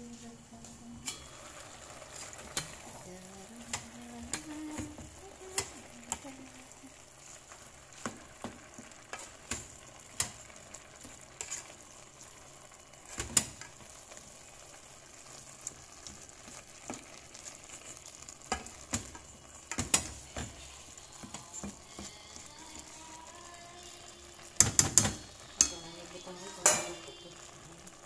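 Ground meat with diced potato and tomato sizzling in a metal pot while a plastic spoon stirs it, scraping and knocking against the pot's sides. A quick run of louder knocks comes near the end.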